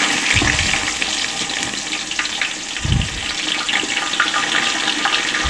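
Sliced onions sizzling and crackling as they drop into hot oil in a pot, with two dull thumps about half a second in and near three seconds.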